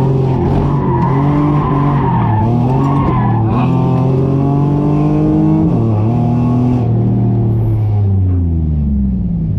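An autocross car's engine driven hard, heard from the open cockpit. Its revs climb and drop again and again between corners while the tires squeal, and the revs fall away near the end as the car slows.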